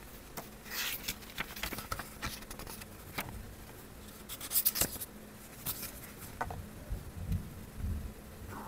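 Paper pages of a small paperback being turned and pressed flat by hand: a run of crisp paper rustles and flicks, loudest about halfway through, then a couple of soft low thumps near the end as the book is handled. A faint steady hum runs underneath.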